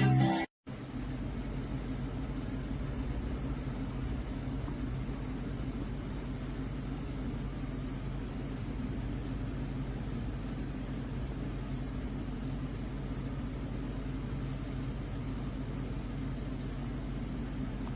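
Music cuts off abruptly at the start, then a steady low rumbling drone runs on unchanged.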